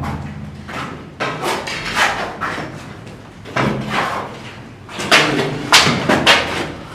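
Irregular knocks and thuds as a door is opened and people come through it, louder toward the end.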